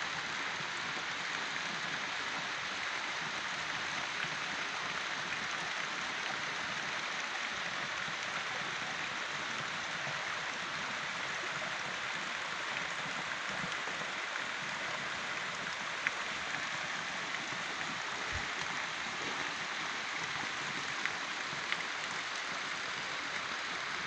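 Small waterfall, about ten metres high and running thin in a low-water year, pouring down a rock face into a pool: a steady, even rush of falling water.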